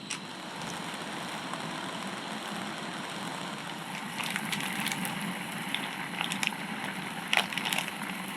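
A pot of water heating on a camp stove: a steady hissing rush, with a few clicks and rattles of handling from about four seconds in.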